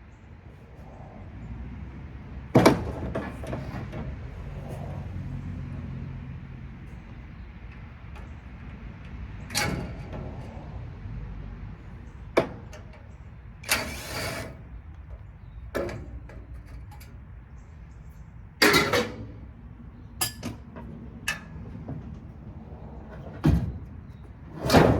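About ten irregular knocks and clanks, with a short rasping scrape midway and a low hum in the first third, typical of dismantling an air-conditioning unit for scrap metal.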